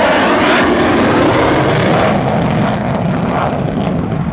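Aircraft flying past at an air show, a loud engine noise that falls in pitch over the first second or so as it goes by, then settles into a steady lower rumble.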